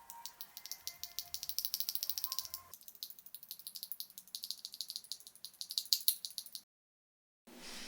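Rapid, dense rattling of many small hard plastic parts, keyboard switch parts being handled during lubing, busiest in the first three seconds. It cuts off suddenly near the end.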